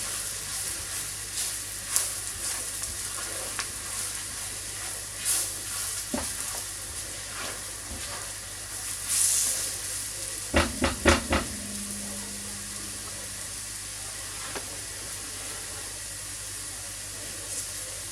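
Onions, vegetables and dried spices sizzling steadily in a frying pan as they are stirred, with scattered clicks and scrapes of the spoon on the pan. A little past the middle there is a quick run of about four knocks, like the spoon tapped on the pan.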